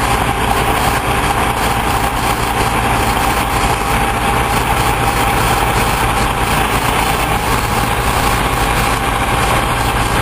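Heavy diesel engines running steadily: a dump truck with its box raised, tipping asphalt into an asphalt paver, with the paver's engine running alongside.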